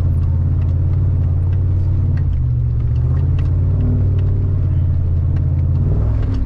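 LS1 V8-powered Nissan Patrol 4WD heard from inside the cabin, its engine and drivetrain droning steadily while driving a dirt track. Faint rattles and knocks come through now and then.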